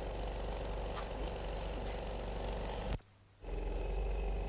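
Steady hiss with a low electrical hum. It cuts out for about half a second around three seconds in, then resumes unchanged.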